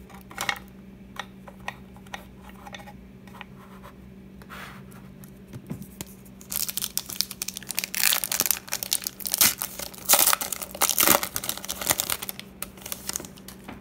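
A few light clicks of trading cards being set into a clear plastic case, then, about six seconds in, a foil card-pack wrapper crinkling and tearing open with loud, dense crackling that runs until near the end.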